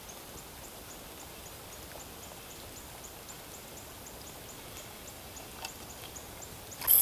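Steady hiss of rain falling on creek water, with a short high chirp repeating about four times a second throughout. A burst of loud crackling comes near the end.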